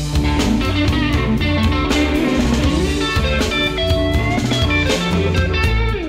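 Background music: a guitar-led instrumental with drums keeping a steady beat.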